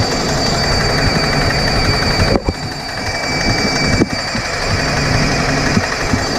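Wagner airless paint sprayer running with its freshly repacked piston pump primed and drawing paint from the bucket: a steady mechanical running with a thin high whine, dipping briefly twice.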